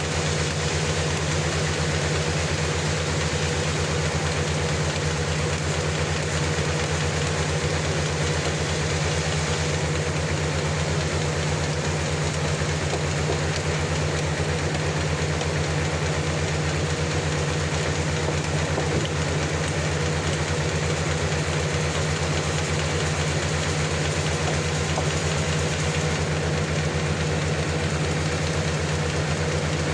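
Sawmill's engine running steadily at an even speed, with a fast, regular beat and no change in load.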